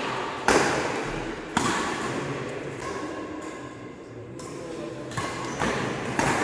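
Badminton rackets striking a shuttlecock in a doubles rally, sharp cracks that ring out in a large hall: two hits in the first two seconds, then several more near the end.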